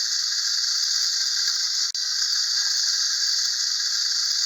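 Clockwork motor of a wind-up tin toy train running, with a steady, high, hissing whir. It breaks off for an instant about two seconds in.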